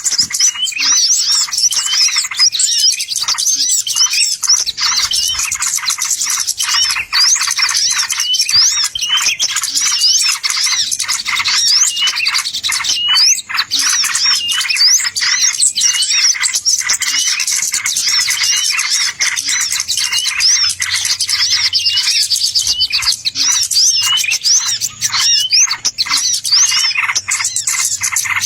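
Dense, unbroken birdsong: rapid high chirps and short slurred whistles following one another without a pause. This is a bird-lure (pikat) recording of the kind played to call wild birds in.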